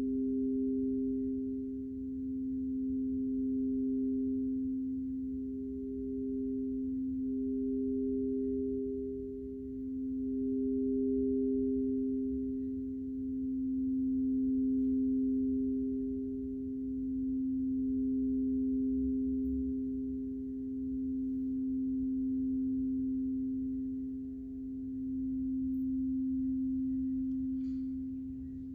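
Singing bowls ringing two steady, sustained tones, one lower and one higher, that swell and fade in slow waves about every four seconds.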